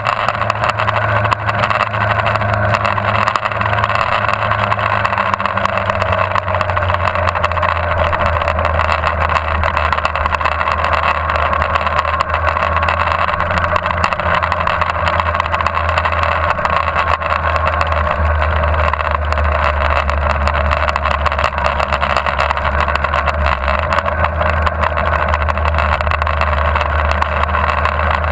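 Motorcycle engine running at an easy, steady pace, heard from a camera mounted on the bike together with a constant rush of wind. The engine note shifts slightly a few times as the rider works through the bends.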